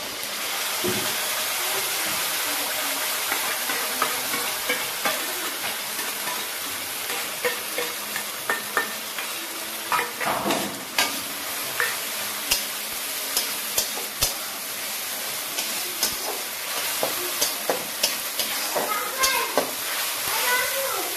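Ground masala paste sizzling in hot oil in a metal kadai, a steady hiss, with a metal spatula scraping and clicking against the pan as it is stirred. About ten seconds in the sizzle gets louder as more paste is poured in.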